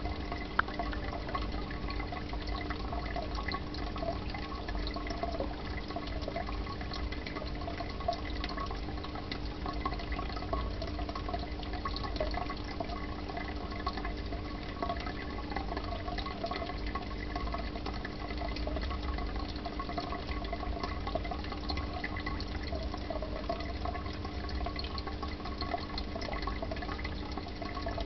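Aquarium water circulation: a steady trickling, bubbling gurgle of running water over a constant low pump hum, with one sharp click about a second in.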